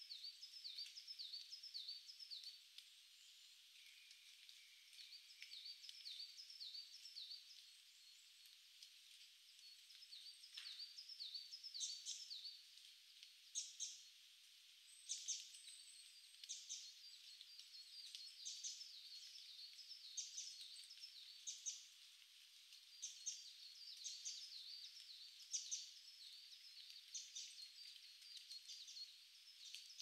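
Small wild birds calling faintly in a forest: quick series of short, high, thin notes, several birds overlapping, growing busier in the second half with a few sharper, louder calls.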